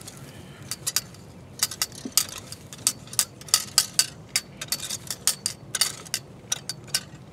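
Garden rake being dragged through loose compost soil, its tines scraping and clicking in quick irregular strokes as soil is raked over to bury waste. The strokes are sparse at first, then come several a second.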